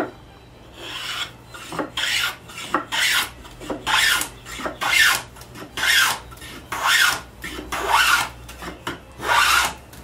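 A wooden barrel stave being pushed repeatedly along a cooper's long upside-down jointer plane, shaving its edge: about nine scraping strokes, roughly one a second. A sharp knock comes right at the start.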